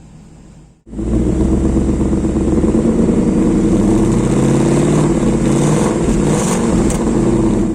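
Ford Mustang Mach 1's 5.0-litre V8 running through its active exhaust set to quiet mode. The exhaust cuts in suddenly about a second in and holds a steady, deep note.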